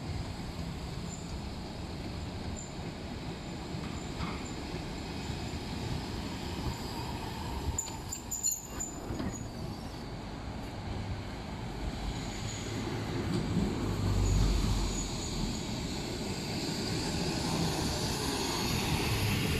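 Vintage Milan Class 1500 tram rolling in along the rails over a background of street traffic. Its rumble and wheel-on-rail noise grow over the second half as it draws near.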